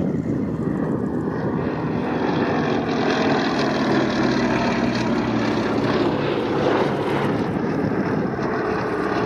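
Propeller aircraft engine drone, steady throughout.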